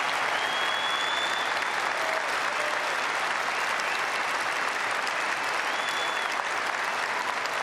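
Audience applauding steadily, a dense sustained clapping that does not let up.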